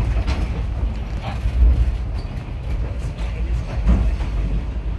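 B&O caboose rolling on the rails, heard from inside the cupola: a steady low rumble with a few scattered knocks.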